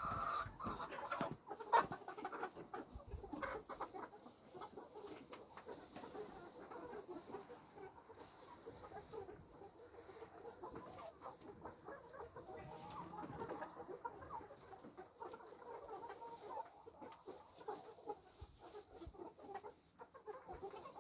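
A flock of chickens clucking quietly and continuously, with scattered short clicks among the calls.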